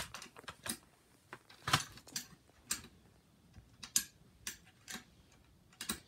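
Irregular clicks and light knocks of small hard parts being handled, about a dozen in all, the sharpest right at the start.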